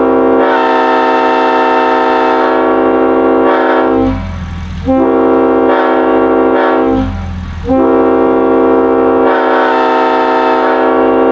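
Railroad air horn blowing a several-note chord in three long blasts: the first ends about four seconds in, the second runs from about five to seven seconds, and the third starts near eight seconds and is still sounding at the end.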